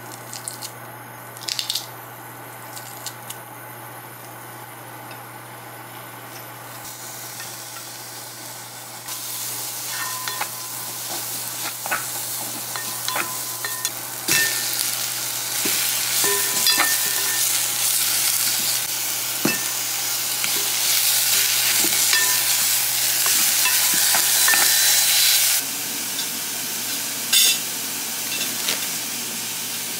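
Minced garlic and green onion sizzling in sesame oil in a pot, stirred with a wooden spatula that clicks and knocks against the pot. The sizzle grows and gets louder at about the middle, when minced meat goes in. It stops suddenly near the end, and a few knocks follow.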